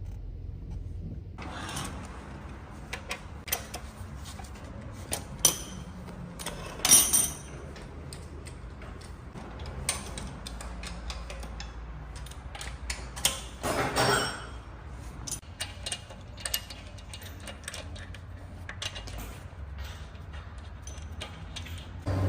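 Hand tools clicking and knocking on metal car parts, irregular sharp clicks with a few louder clanks, over a low steady hum, as a BMW's front suspension is worked on to reach a worn rubber bushing.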